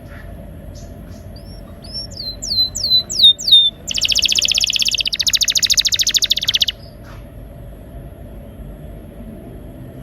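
Domestic canary singing: a run of about six falling whistled notes, then a fast rolling trill for nearly three seconds, broken briefly in the middle. The song stops about seven seconds in, leaving a faint steady hum.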